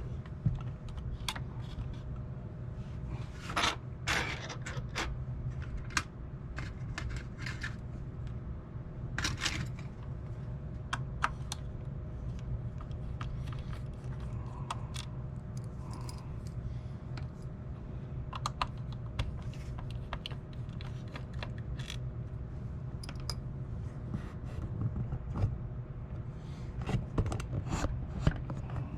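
Small screwdriver clicking and scraping as screws are worked out of a portable cassette recorder's plastic case, with the unit being handled. Irregular light clicks and a few longer scrapes over a steady low hum.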